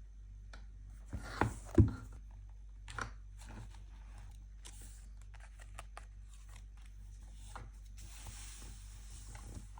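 Paper and stationery being handled while journaling. A few sharp taps and clicks come about a second in, followed by scratchy rubbing and rustling of paper, with a longer rustle near the end.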